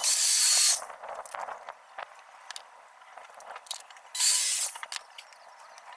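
Two short bursts of hissing noise, one at the start and one about four seconds in, with faint clicks between.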